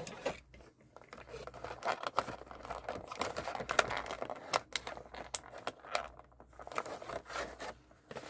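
Doll packaging being handled and pulled apart by hand: crinkling and tearing, with many short clicks and taps.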